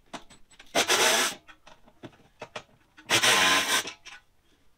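Cordless power driver backing out the cargo box's mounting screws, run in two short bursts, a little under a second in and again at about three seconds.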